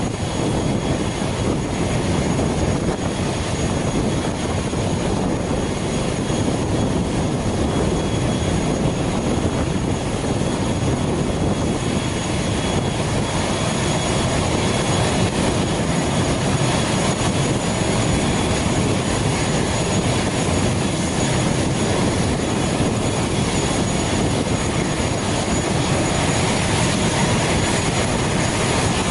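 Steady roar of an ATR 72 turboprop's engine running while the aircraft stands on the ground, with a thin high whine over it.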